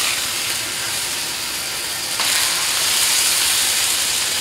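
Pork chops sizzling on a hot Blackstone steel griddle top, a steady frying hiss. The sizzle steps up about two seconds in as the second chop goes down.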